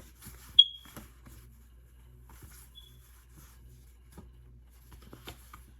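Faint handling noise of cards on a table, soft clicks and rustles. A short, sharp high beep about half a second in is the loudest sound, with a fainter repeat near 3 seconds.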